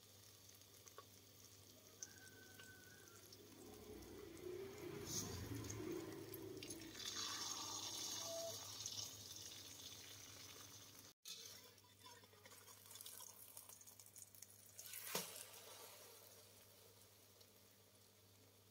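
Beaten duck egg with chopped cha-om leaves frying in oil in a metal pan: a soft sizzle that swells for a few seconds, breaks off briefly near the middle and goes on more quietly. A single sharp tap comes about three-quarters of the way through.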